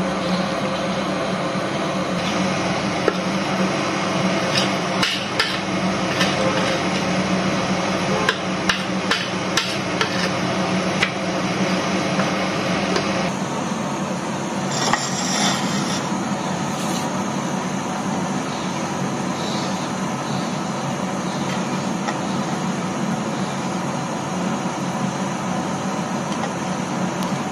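Kitchen handling noise: a run of sharp taps and clicks as a foil pouch and a ceramic plate are handled, over a steady hum that changes about halfway through.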